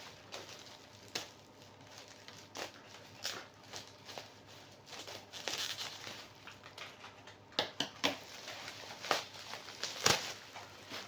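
Sandal packaging being handled and opened: irregular crinkling and rustling, with scattered sharp clicks that are loudest in the second half.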